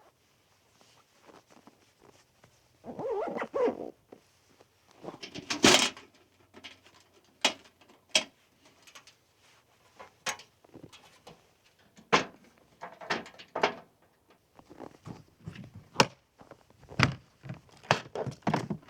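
Handling noises from setting up to cook: scattered clicks and knocks with louder rustling scrapes about three and five and a half seconds in.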